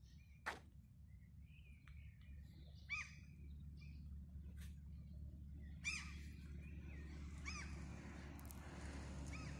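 Birds calling: short, arched calls repeated every couple of seconds, with a sharp click about half a second in. Beneath them a low traffic rumble grows louder over the second half as a car approaches.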